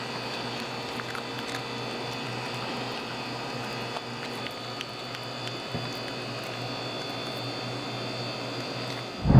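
A small dog chewing a hand-fed treat, with faint scattered clicks over a steady room hum. A loud, short low thump comes just before the end.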